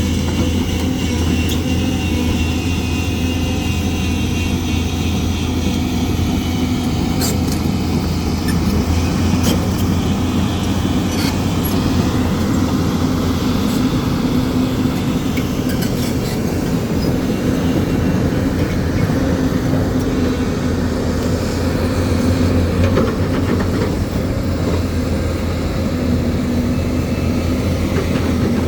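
Excavator diesel engine running steadily with a deep, unchanging drone, with a few short sharp knocks in the first half.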